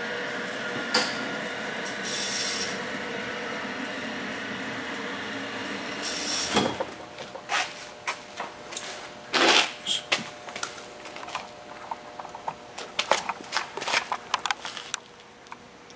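A steady mechanical hum that stops about six seconds in, followed by scattered small clicks, knocks and rubbing of hands working with tools and wiring under the hood.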